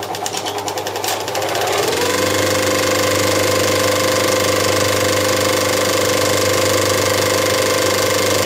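1959 National 35mm cinema projector running with a fast mechanical clatter. About two seconds in, a steady hum slides up slightly in pitch and settles, and the sound gets louder.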